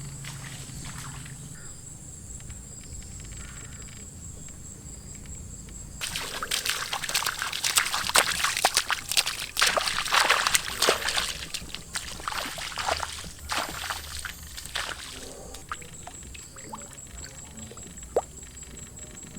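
Water sloshing and splashing, quiet for the first few seconds, then a run of loud, irregular splashes from about six seconds in that tapers off after about twelve seconds.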